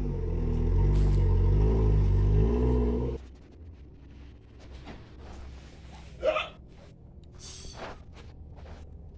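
Car engine running with its pitch rising and falling slightly, then switched off about three seconds in. Afterwards it is much quieter, with a few light clicks and a short squeak about six seconds in.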